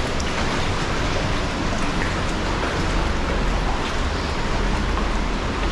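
Waterfall rushing, a steady, loud wash of falling water with faint scattered splashes.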